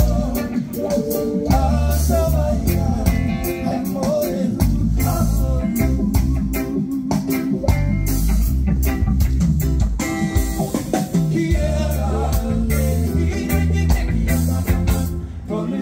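A live band playing a song: electric guitars, bass and drum kit, with a singer's voice over them.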